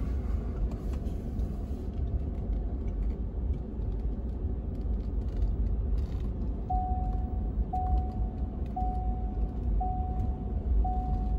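Steady low rumble of a Ford F-150 pickup driving slowly over a dirt road, heard from inside the cab. About seven seconds in, a single-pitched chime starts repeating about once a second.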